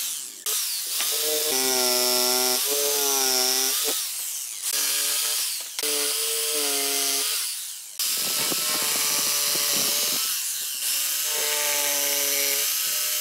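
Makita corded jigsaw cutting through pine boards, its motor whine shifting in pitch as the blade bites. It stops and starts several times, with short breaks between runs.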